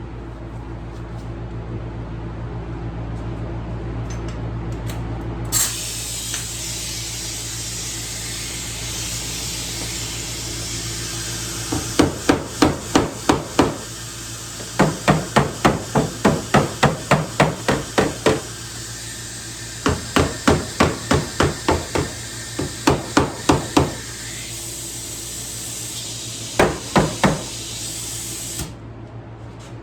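Rapid light hammer strikes on a car door panel in five bursts of three to fifteen blows, about four a second, over a steady hiss of air that starts a few seconds in and cuts off near the end.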